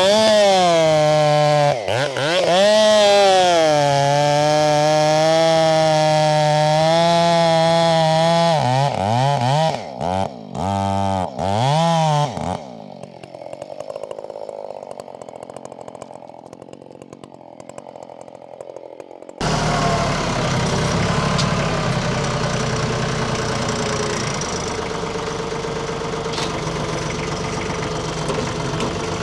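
Husqvarna 572 XP two-stroke chainsaw running at full throttle through a large pecan log, its pitch dipping and wavering under load. It is then blipped in four short revs and drops much quieter for several seconds. About two-thirds of the way in, the sound switches abruptly to a steady tractor engine idling.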